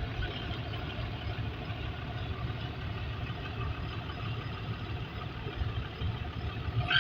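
Heavy vehicle engine idling steadily with a low rumble.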